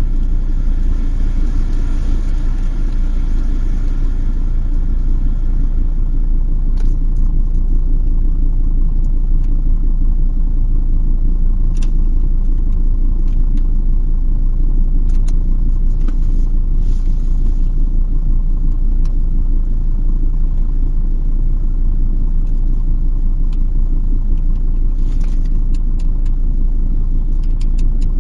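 Steady low rumble of a car, with a few faint clicks scattered through it.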